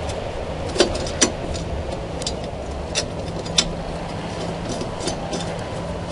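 Light metal clicks and clinks, about five in the first four seconds, from a lawn mower blade, spacer and washers being fitted by hand onto the spindle under the deck, over a steady low hum.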